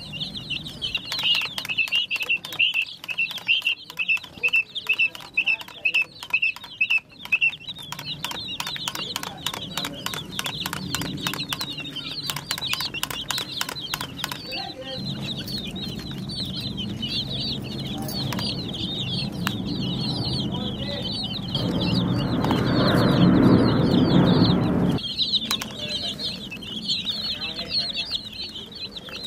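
A flock of domestic chicks peeping continuously in high, rapid calls. A fast run of sharp clicks sounds through the first half, and a louder low rushing noise swells in the second half, then cuts off a few seconds before the end.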